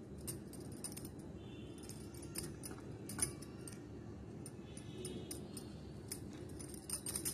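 Faint scraping of a spoon spreading garlic butter over a bread slice, with scattered light clicks as the spoon taps against a small glass bowl.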